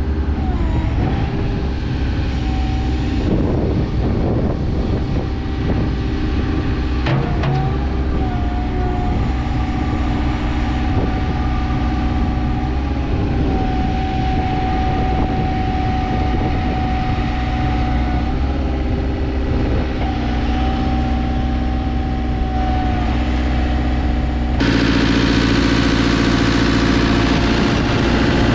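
JCB 3CX backhoe loader's diesel engine running steadily, with a higher whine that shifts in pitch now and then. About 25 seconds in, the engine sound gets louder and harsher.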